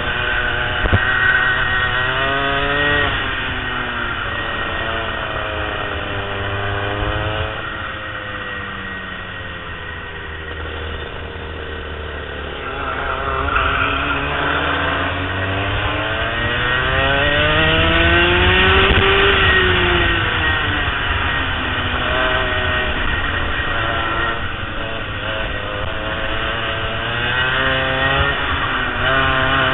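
Racing go-kart engine heard from the kart itself, revving up on the straights and dropping off into the corners, its pitch rising and falling again and again. The deepest drop comes about ten seconds in, followed by a long climb that peaks past the middle.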